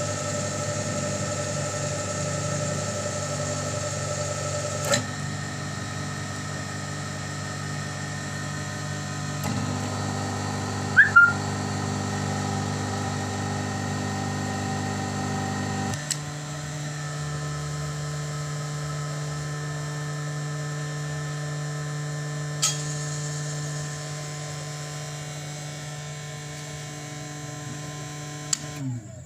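Electric motor of a pig-roasting rotisserie machine running under an Arduino control box, a steady hum of several tones that shifts in pitch in steps a few times, with a few sharp clicks. Near the end the tones glide down as the motor winds down to a stop.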